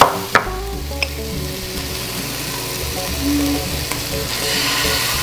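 Onions and paste sizzling steadily in an electric skillet. A few sharp clicks in the first second come from a spoon knocking on the cup as paste is scraped into the pan.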